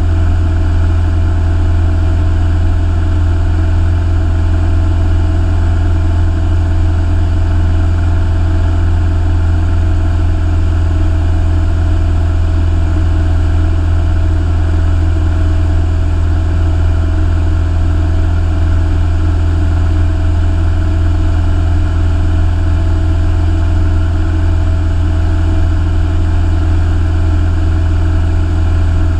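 Single-engine light aircraft's piston engine and propeller running steadily in flight, heard from inside the cockpit as a constant low hum.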